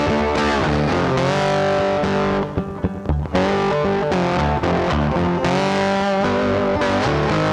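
Background music led by guitar, with a short break about two and a half seconds in where it drops quieter for under a second.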